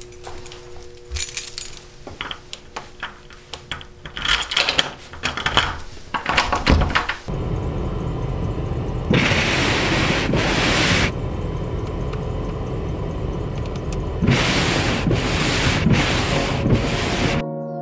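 Keys jangling with door clicks and knocks. Then a steady rush of noise in a snowbound car, with two louder hissing spells of about two seconds each as snow is cleared from the windshield.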